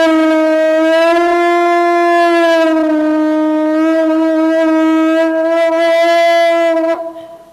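Conch shell trumpet blown in one long, steady note, with a hand held in the shell's opening; the pitch dips slightly partway through and rises again, and the note cuts off near the end.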